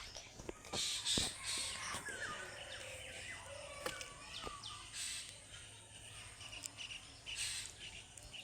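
Outdoor ambience with birds chirping and calling in short sweeping notes, with scattered clicks and a couple of brief rustling bursts of noise.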